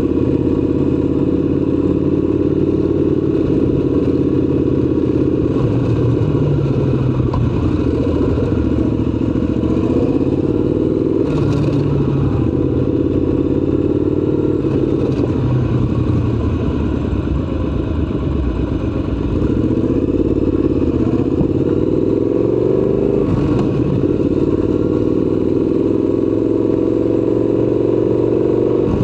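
Triumph Scrambler 1200 XC's parallel-twin engine running on the move, its pitch rising and falling repeatedly with throttle and gear changes, with two brief clicks along the way.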